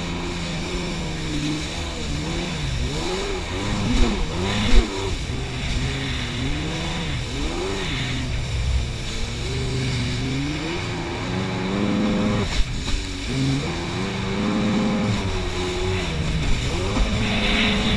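Wave runner's engine running at speed, its pitch rising and falling again and again as it revs up and down, over a steady rush of water spray and wind.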